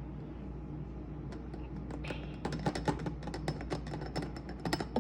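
A run of light, irregular clicks and taps against a glass jar as it is filled with chopped onion and honey, sparse at first and coming thick and fast in the second half.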